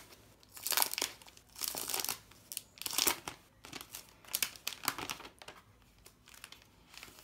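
Clear plastic protective film crinkling and crackling in the hands as it is handled and pulled free, in a string of irregular short rustles.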